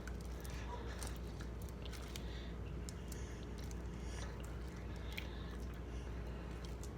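Sticky clear-glue slime being kneaded and stretched by hand, with many small wet clicks and squelches over a steady low hum.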